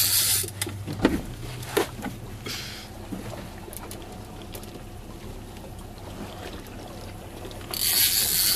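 Big-game Penn reel's drag paying out line under a hooked bluefin tuna's pull: a high hissing buzz at the start and again for about a second near the end. Between the bursts there is a quieter steady wash of the boat on the water, with a few faint knocks.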